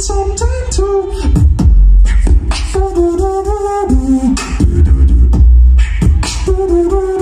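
Solo beatboxing: deep bass hits and sharp snare-like clicks under a hummed melody line that steps between a few held notes.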